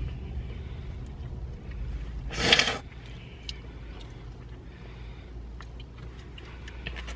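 Low steady hum inside a parked car's cabin, with a few faint light clicks. One short, loud, breathy puff of air comes about two and a half seconds in.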